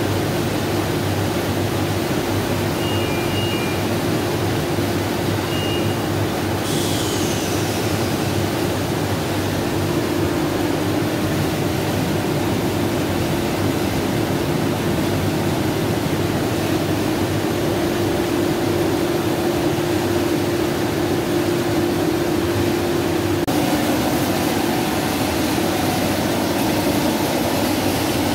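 OMET Multifilm 520 flexo printing press running: a steady mechanical drone with a constant low hum. Short high beeps come twice in the first few seconds, and a brief falling whine follows about seven seconds in.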